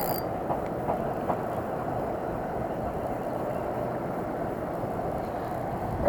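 Steady low rumble of wind buffeting the action camera's microphone, with no distinct events.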